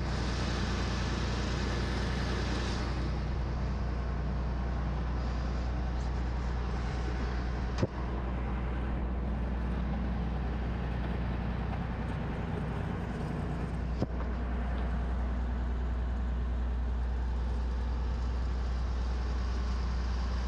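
New Holland L521 combine harvester's Fiat diesel engine running steadily at idle. Two sharp knocks stand out, about 8 and 14 seconds in.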